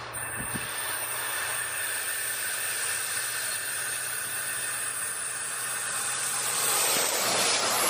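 Diesel locomotive hauling a passenger train as it approaches: a steady engine hum under hissing rail and running noise that grows louder about seven seconds in as the train draws near.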